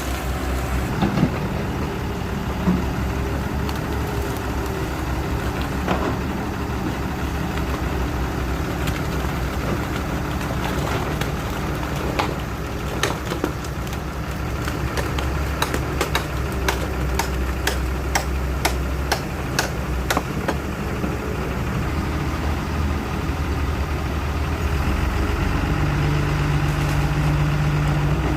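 Excavator's diesel engine running steadily, with a run of sharp knocks about halfway through; near the end the engine note rises and grows louder.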